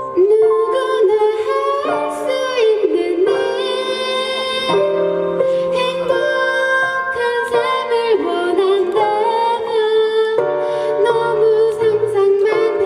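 A woman singing a gentle pop melody, live, over steady instrumental accompaniment.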